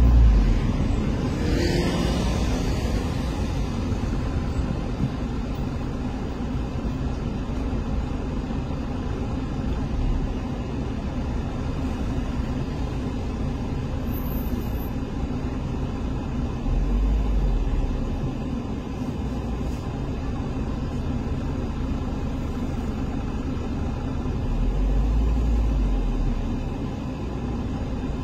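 Steady city street traffic rumble, with deeper low swells of rumble twice later on.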